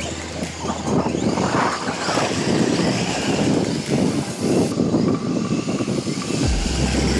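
Arrma Talion brushless electric RC car driving through dry leaves, its motor and tires churning the leaves in irregular surges.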